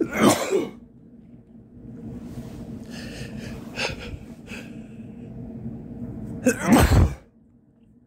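A man sneezing twice: one sneeze right at the start and a second, louder one near the end, with a few short breaths between. The sneezes come from a tickling, sniffly nose.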